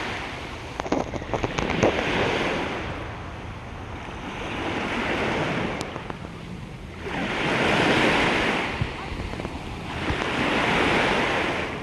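Ocean waves washing onto the beach, the surf rising and falling about every three seconds, with wind buffeting the microphone. A short cluster of light clicks about a second in.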